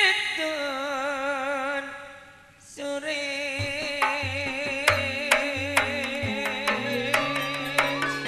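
A singer holds a long wavering note that fades away about two seconds in. About three seconds in, a gamelan-style ensemble for a Madurese gending comes in with sharp metallic strikes, drum thuds and a stepping bass line.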